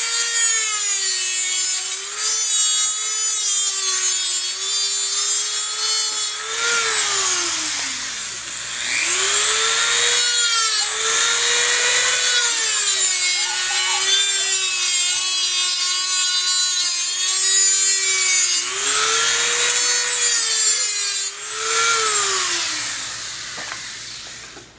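Handheld rotary tool with a cut-off wheel cutting thin sheet metal: a high motor whine over a hissing grind. About six seconds in the whine sinks and winds back up, and near the end it slides down as the tool spins down.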